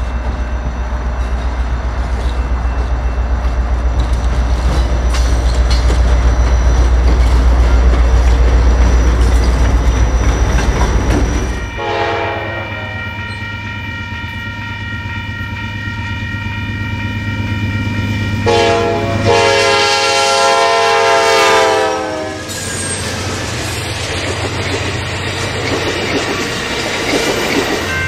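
Amtrak EMD F40PH diesel locomotive running with a deep, steady rumble. About twelve seconds in, a train's multi-note air horn sounds two long blasts, followed by the growing noise of the oncoming train.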